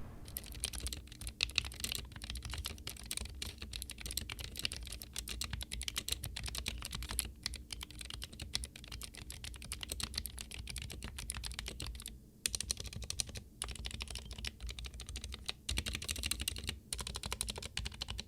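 Typing on an SK68 mechanical keyboard fitted with lubed, clicky Gateron Blue switches and switch films: a fast, continuous clatter of keystrokes and clicks, with a couple of brief pauses.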